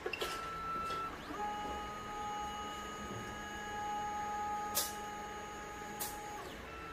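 Stepper motors of a Creality CR-10 S5 3D printer whining as they drive the glass bed and print head to the next bed-leveling point. There is a short tone just after the start, then a steady whine of several pitches from about a second in until shortly before the end, with a few sharp clicks.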